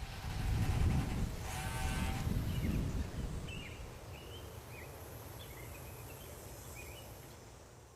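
Rural outdoor ambience: a low rumble through the first few seconds, one short pitched animal call about two seconds in, then small birds chirping now and then as the background fades.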